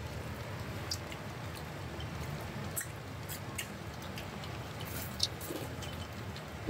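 Pot of snakehead fish porridge simmering on a tabletop stove: a steady low noise with scattered small pops and clicks of bubbles breaking.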